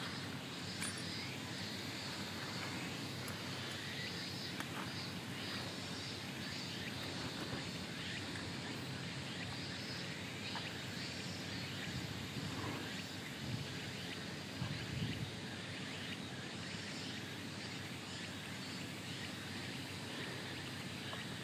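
Steady outdoor background noise, with a few faint low bumps about two-thirds of the way through.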